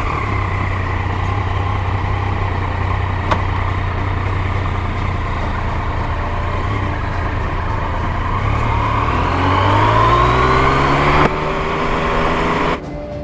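Yamaha MT-09's three-cylinder engine running at a steady pitch, then rising as the bike accelerates from about eight seconds in. There is one sharp click about three seconds in, and the sound breaks off abruptly near the end.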